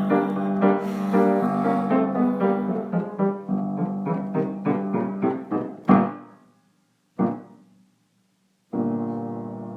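Solo piano closing a song: a run of notes that slowly fades, a louder note near six seconds in, one more note about a second later, a brief silence, then a final chord held and ringing out.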